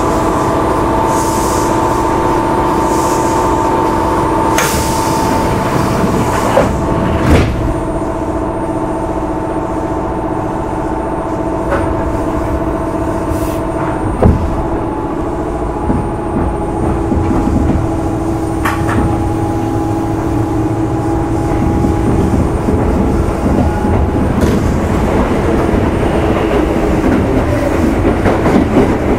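Onboard running sound of a Kintetsu 1810-series electric motor car (Mo 1826) at speed: a steady traction-motor and gear whine over rumbling wheel and rail noise. There are a couple of sharp knocks, about 7 and 14 seconds in.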